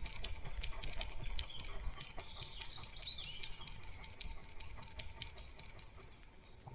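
A dog's paws stepping along a dirt forest path, heard close up from a camera mounted on its head, with a low rumble of movement that grows quieter toward the end. A bird calls briefly in the middle.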